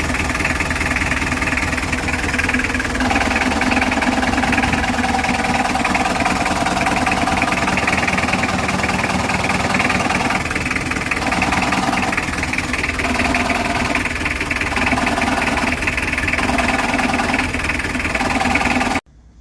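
Car engine idling with a growling noise in the clutch. The sound changes character several times as the clutch is worked, then cuts off suddenly near the end. The mechanic puts the growl down to a worn, sagging clutch diaphragm spring that no longer presses the release bearing fully.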